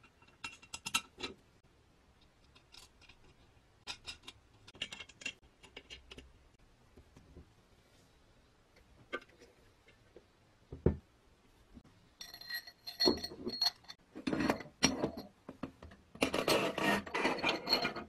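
Cast-iron body and metal parts of a Peugeot Frères coffee grinder being handled and fitted together: scattered small metal clinks and rattles, one sharp knock about eleven seconds in, and a denser run of ringing, rattling clinks over the last few seconds.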